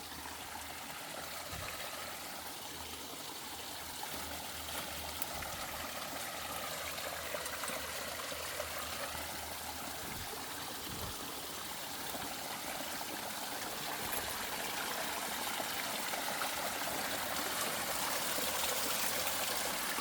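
A small stream flowing and trickling steadily, growing a little louder toward the end.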